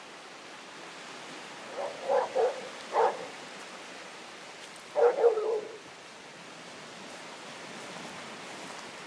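Dog barking: a quick run of about four short barks two to three seconds in, then another burst of barks about five seconds in, over a steady background hiss.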